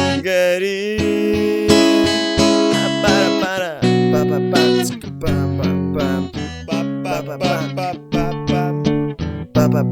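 Music: a sung word held with a wavering note in the first second or so, then strummed guitar chords in a steady rhythm.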